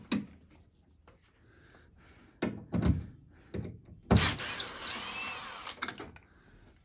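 Cordless screw gun with a Phillips bit running for about two seconds, starting about four seconds in, to turn a screw in a plastic thermostat wall plate. It comes after a few light knocks from handling the plate.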